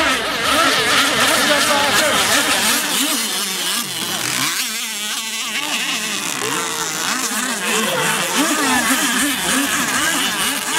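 Two radio-controlled catamaran racing boats running at speed, their motors' whine wavering up and down in pitch, a little quieter around the middle.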